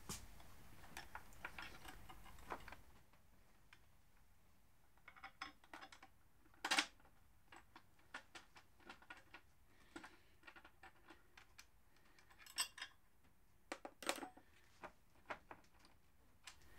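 Scattered small metallic clicks and taps of bolts, spacers and the wheelie-bar bracket being handled as the bolts are started by hand. Louder single knocks come about 7 and 14 seconds in.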